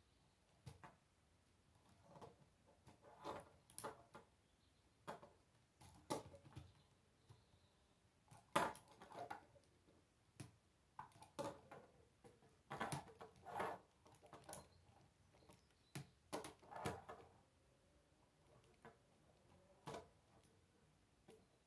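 K'nex plastic rods and connectors clicking and snapping into place as a model is put together by hand. The clicks and light rattles come at irregular intervals, a few in quick clusters.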